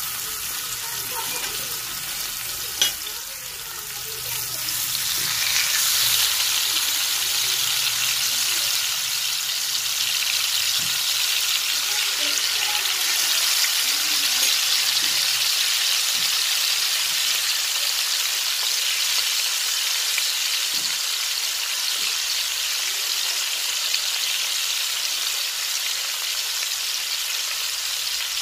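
Masala-coated fish pieces shallow-frying in hot oil on a flat iron tawa: a steady sizzle that grows louder about five seconds in, as more pieces go into the oil. A single sharp click about three seconds in.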